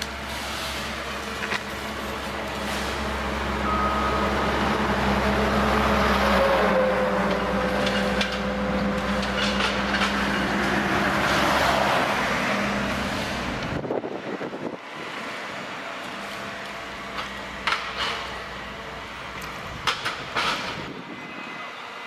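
John Deere 1470E forestry harvester running, its engine and hydraulics working harder for several seconds as the boom and harvester head move, then easing off sharply past the middle. A few sharp knocks follow near the end.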